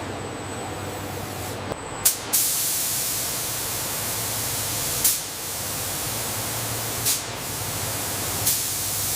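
Steady hiss of a spray gun applying a protective coating, louder from about two seconds in, broken by a few brief clicks.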